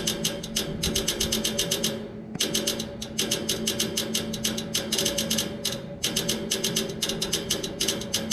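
Outdoor air-conditioning unit clicking rapidly, about nine clicks a second, in runs broken by short pauses about two seconds in and about six seconds in, over a steady hum. The clicking goes on while the condenser fan is off and was not cured by a new fan motor.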